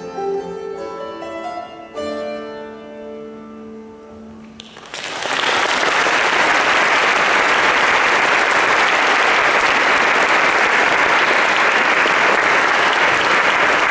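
An ensemble of three kannels (Estonian board zithers) plays the last plucked notes of a polska, the final chord ringing and fading for about two seconds. About five seconds in, an audience starts clapping, and loud applause continues.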